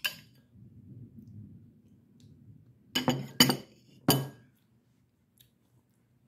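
Metal spoon clinking against a bowl while scooping ice cream: one tap at the start, then three sharp clinks about three to four seconds in.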